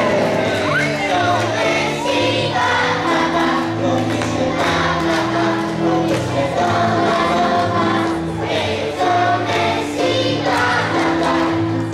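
A group of young children singing a song together with instrumental accompaniment.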